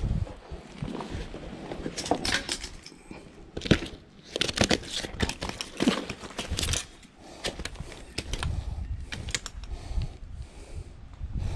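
Rustling and clicking of a fishing backpack and gear being handled by hand, with irregular sharp clicks and scrapes, a few louder ones a couple of seconds apart.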